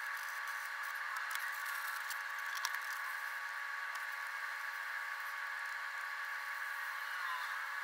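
Steel wool rubbing over an Osage orange wand, with the audio sped up six times: a fast, even scratchy rustle over a steady high hum.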